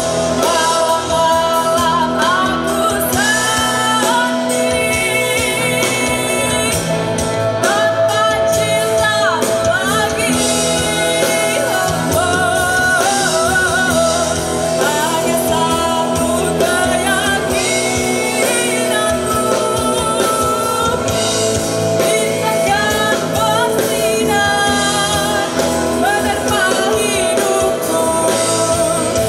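A band playing a pop-rock song with a singer's voice over it, at an even, loud level.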